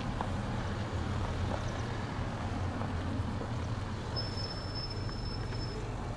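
A steady low motor hum, like a vehicle engine running, with a thin high tone held for about a second and a half near the end.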